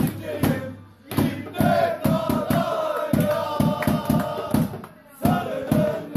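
A group of men chanting a football terrace song together in unison, over a steady beat of sharp claps. The chant breaks off briefly about a second in and again near the end, then starts up again.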